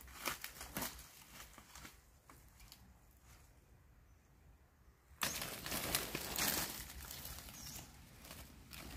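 Dry fallen dipterocarp leaves rustling and crackling as they are brushed aside to uncover mushrooms. A few faint rustles at first, then a sudden burst of close crackling starts about five seconds in and carries on.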